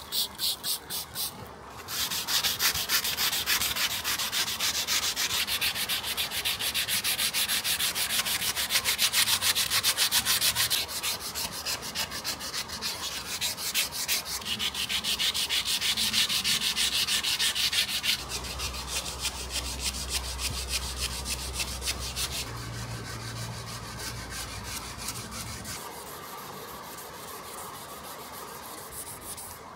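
Sanding by hand: an abrasive rubbed back and forth over a workpiece in fast, even strokes, louder in stretches and easing off near the end.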